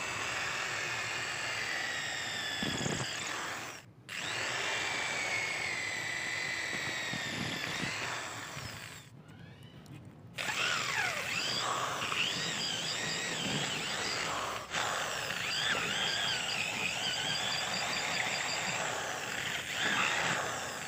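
Electric hand drill boring a hole into a wooden slingshot-rifle stock, its motor whine wavering in pitch as it works through the wood. It runs in several stretches, with a short break about four seconds in, a two-second pause near the middle and another brief break later.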